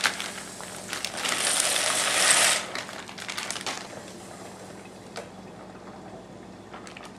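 Dry ziti pasta poured from a bag into a steel pasta pot of water: a dense rattling rush lasting about a second and a half. After it come lighter clicks and scrapes as the pasta is stirred.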